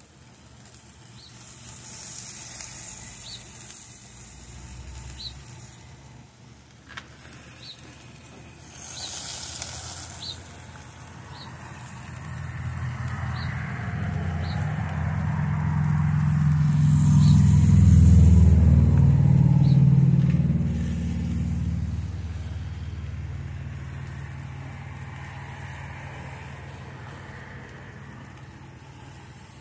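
A motor vehicle driving past, its engine sound swelling to a peak about two-thirds of the way through and then fading away. Faint short high chirps recur in the background.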